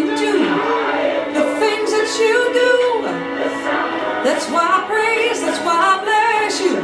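Gospel praise music: singing voices gliding between held notes over a sustained instrumental accompaniment.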